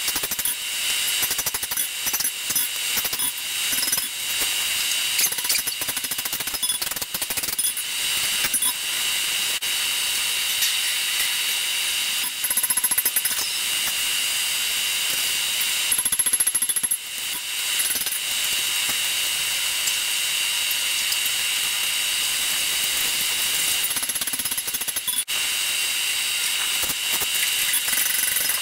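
Hand hammer striking a hot 5160 steel bowie blade on an anvil, in quick runs of blows. Midway the blows thin out to a steady background rush while the blade is reheated. Hammering picks up again near the end.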